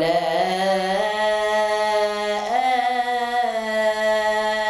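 A boy's voice reciting the Qur'an in melodic tajweed, drawing out one long vowel without a break. The note steps up in pitch about two and a half seconds in and is then held level.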